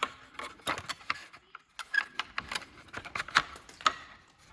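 Display-assembly clips being fitted into their slots and pressed down, a string of irregular sharp clicks and clacks from handling the parts.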